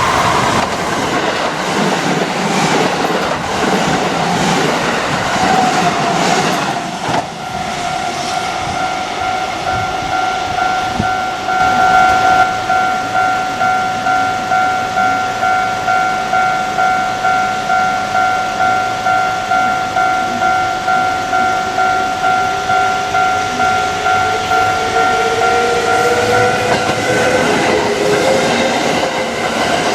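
Japanese level-crossing warning alarm ringing in a quick, even rhythm, with a train running over the crossing with wheel clatter for the first several seconds. Near the end a rising motor whine and wheel noise build as another train approaches.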